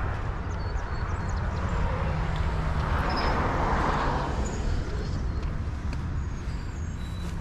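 Road traffic outdoors: a vehicle passing, its noise swelling and fading around the middle, over a steady low rumble.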